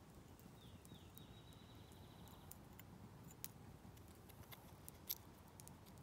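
Near silence: faint small clicks as obsidian blades are handled and one is fitted into a wooden handle, the sharpest about five seconds in. A faint high trill runs for about two seconds near the start.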